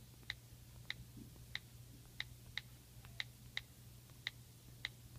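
Key-click ticks of an iOS touchscreen keyboard as a password is typed, about nine short, sharp ticks at an uneven typing pace, over a faint steady hum.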